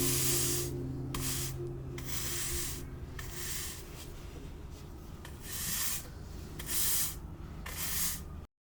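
A series of short scraping, rubbing sounds, several spaced about a second apart, over quiet background music that fades out within the first few seconds. The sound cuts off abruptly near the end.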